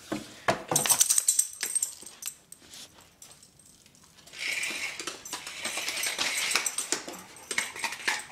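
Light jingling and clicking rattles as a dog plays with a small toy car on a hardwood floor: a run of clicks in the first two seconds, a scraping hiss from about four to seven seconds in, then more clicks near the end.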